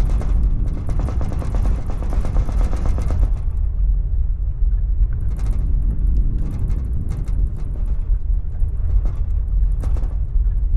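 Deep, steady earthquake rumble with things in a room rattling rapidly over it. About three and a half seconds in, the rattling thins out to scattered clatters while the rumble goes on.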